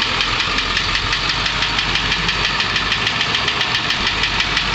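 Ford 7.3-litre Powerstroke V8 turbo diesel in a 2002 International short bus running steadily with an even diesel clatter, just after the transmission is put in drive.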